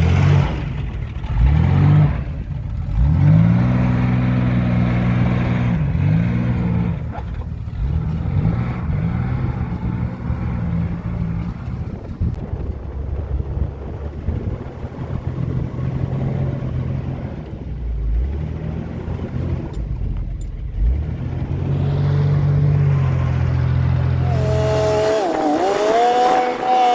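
Chevy S10 Blazer's engine labouring up a dirt trail in four-low, revving up and easing off again and again under load. About 25 seconds in, the engine sound drops out and a higher, wavering pitched sound takes over.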